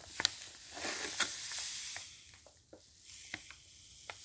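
Granulated sugar pouring from a bag into a plastic cup of coffee: a grainy hiss with light ticks. It is strongest in the first half, eases off around the middle and picks up again near the end.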